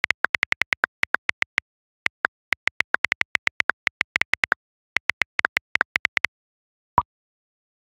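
iPhone on-screen keyboard clicks as a WhatsApp message is typed, in quick irregular runs of taps that stop about six seconds in, followed by a single short sound about a second later as the message is sent.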